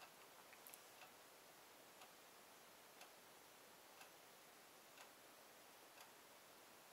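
Near silence with a faint clock ticking steadily, once a second.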